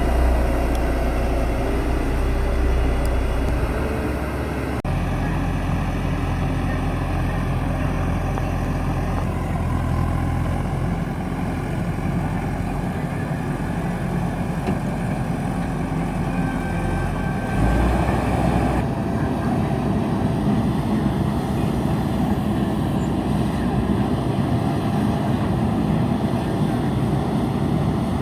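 Diesel engine of a JCB backhoe loader running steadily while it works, with sudden shifts in the sound about five and nineteen seconds in.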